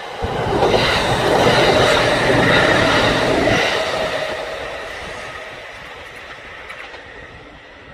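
Kintetsu electric train passing: the noise of the cars going by is loudest from about one to three and a half seconds in, then fades away.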